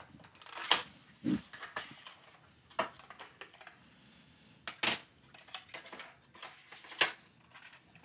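Handling noise from unpacking an M.2-to-SATA SSD adapter: a small cardboard box opened and a clear plastic tray and the plastic adapter enclosure taken out. Scattered rustles, clicks and taps, the sharpest about a second in, near five seconds and at seven seconds.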